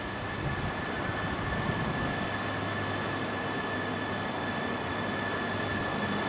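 E3 series 0 and E5 series Shinkansen train arriving slowly at a platform: a steady rumble and hiss with a steady high tone, growing slowly louder as the train draws in.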